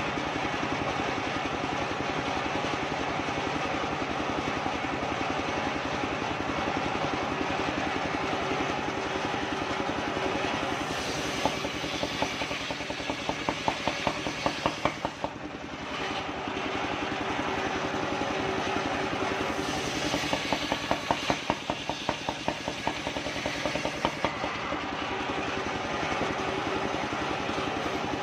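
Engine-driven circular sawmill running steadily as a soft kapok (randu) log is pushed through its large disc blade. Around the middle, and again a few seconds later, the sound pulses rapidly for a few seconds.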